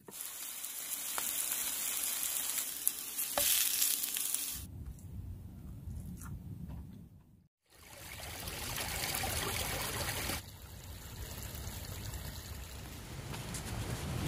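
Lion's mane mushroom pieces frying in a pan, a steady sizzle that stops abruptly about four and a half seconds in. After a stretch of low rumbling, water runs over rocks in a shallow stream.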